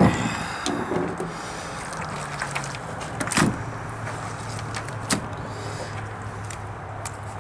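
A few sharp knocks and scrapes as a snapping turtle's opened shell and carcass are handled on a wooden surface, the loudest about three and a half and five seconds in, over a steady low hum.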